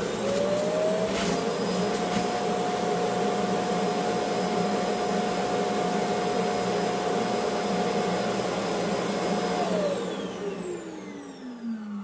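Proscenic M7 Pro's self-emptying dock running its suction motor to empty the robot's dustbin, quite loud: a whine rising as the motor spins up at the start, a steady rush of suction, then a falling whine as it winds down near the end.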